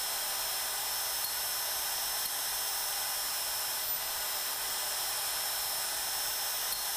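Hougen 10950 cutter sharpening machine's grinding motor running steadily with a high-pitched whine while grinding passes are made on the teeth of an annular cutter to cut the outside inclination angle.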